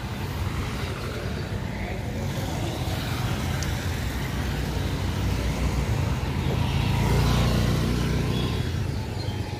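Motor scooter's engine running as it rides close past and just ahead, growing louder and loudest about seven to eight seconds in, over general road traffic noise.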